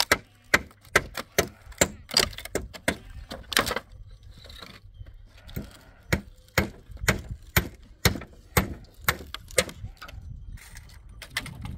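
A run of sharp knocks, irregular, about two to three a second, with a short pause near the middle.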